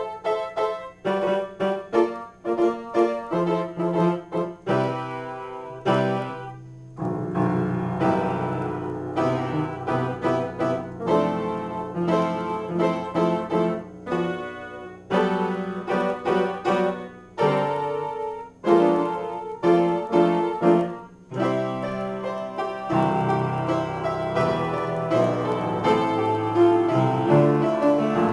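Solo piano being improvised: short, separate chords for the first several seconds, then fuller, more connected playing over held bass notes, growing denser toward the end.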